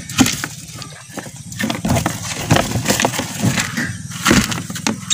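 A hand rummaging through dry wood-shaving bedding in a wire mouse cage: rustling and crackling, with many short clicks and knocks.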